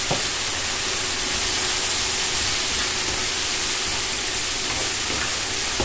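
Sliced porcini mushrooms sizzling steadily in hot olive oil in a frying pan, stirred with a wooden spatula.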